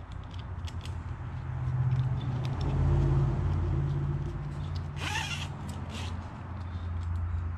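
Nylon webbing strap being pulled and cinched through a plastic buckle, with scattered small clicks of buckle handling and one short rasp of strap about five seconds in. A low engine drone runs underneath, swelling a couple of seconds in and then easing.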